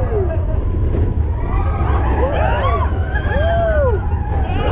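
Steady low rumble of a mine-train roller coaster running along its track, with riders letting out rising-and-falling whoops and screams, about three of them in the second half.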